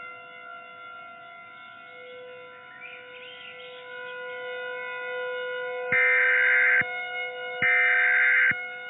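A steady drone of several held tones. About six seconds in, the first two of three short data bursts of an Emergency Alert System end-of-message signal sound, each just under a second long with a short gap between.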